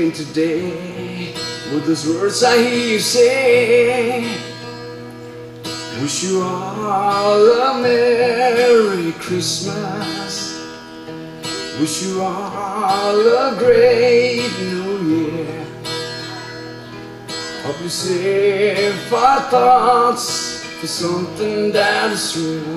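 A man singing a worship song to his own acoustic guitar accompaniment, the guitar strumming steadily throughout. The voice comes in four lines of a few seconds each, with the guitar carrying on alone in the short gaps between them.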